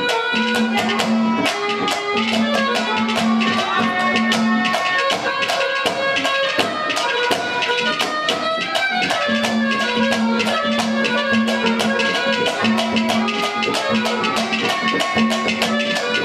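Instrumental interlude of live Haryanvi ragni folk music: a reed melody over a held low drone, with rapid, dense drumming.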